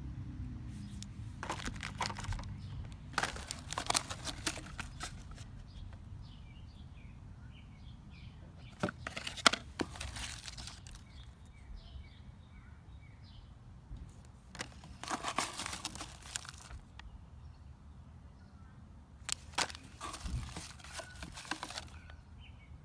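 Plastic packaging crinkling in about five separate bursts as sample packets are handled during an unboxing.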